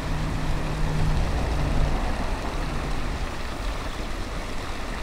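Road traffic: a heavy vehicle such as a truck rumbling past, its low engine hum strongest in the first two seconds and fading out about three seconds in, over a steady background rumble.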